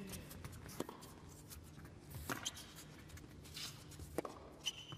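Tennis rally on an indoor hard court: three sharp racket strikes on the ball, about a second and a half apart, with brief shoe squeaks between them.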